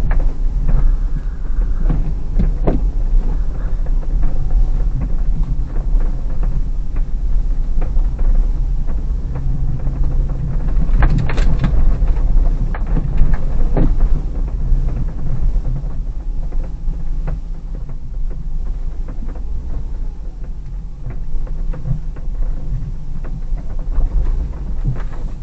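Hyundai Terracan's 3.5 V6 engine running at low speed, heard from inside the cabin as a deep, steady rumble, with scattered knocks and rattles as the SUV rolls over a rough, snowy forest track, a cluster of them about halfway through.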